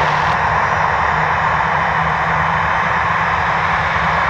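Jet engine noise from a Boeing 737-800's CFM56-7B turbofans at takeoff power: a steady, loud rush of noise over a low rumble.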